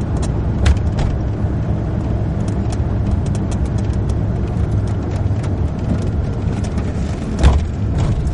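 Car driving, a steady low rumble of engine and road noise, with a soft thump about seven and a half seconds in.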